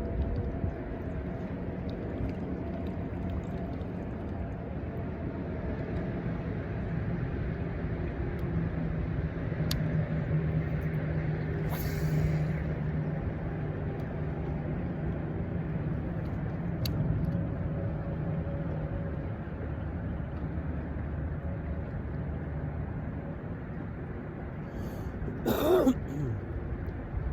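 Steady low rumble and hum of a distant engine. Near the end comes a short, loud sound that falls steeply in pitch.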